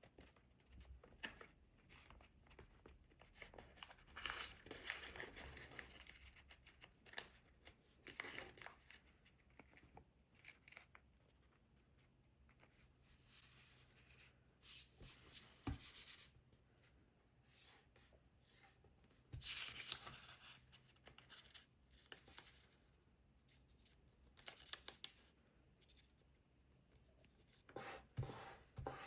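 Sheet of paper being handled and folded: faint intermittent rustling and creasing, with a few sharp crisp clicks as folds are pressed down.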